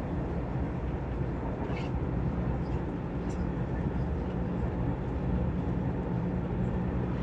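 Dubai Metro train running between stations, heard from inside the carriage: a steady low rumble with a few faint high squeaks.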